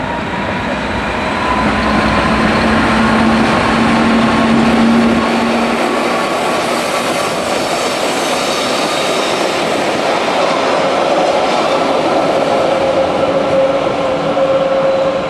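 A Rhaetian Railway train, a Ge 4/4 I electric locomotive hauling a flat wagon and open yellow coaches, rolling past on the rails. There is a steady rumble of wheels with several whining tones over it, and it swells over the first two seconds.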